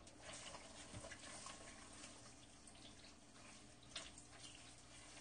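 Faint sizzling of chunjang (Korean black bean paste) being stir-fried in oil over low heat, with a spatula stirring it in the pan and a small tick about four seconds in.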